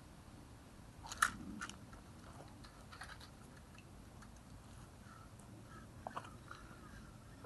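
A few short crunches and crackles over low background hiss, the loudest cluster about a second in and a few more around three and six seconds in.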